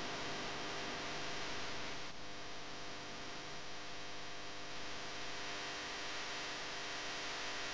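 Steady hiss with a low electrical hum, dipping slightly about two seconds in.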